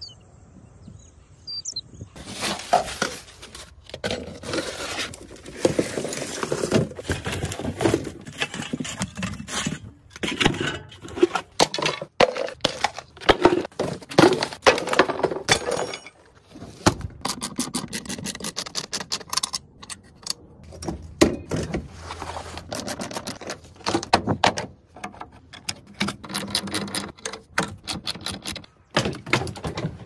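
Busy clatter of knocks, thumps and scrapes as wooden battens, buckets and other junk are handled and moved about inside a dirty van's rear cabin, and its seat fittings are worked on with hand tools. The handling sounds come fast and unevenly, with a short pause near the middle.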